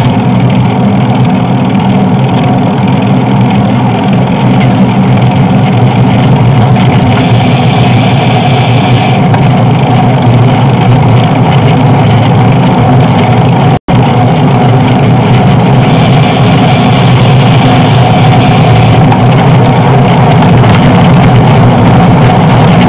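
Loud, steady traffic and riding noise heard from a bicycle-mounted camera, with engines and tyre hum. The sound drops out for a split second about fourteen seconds in.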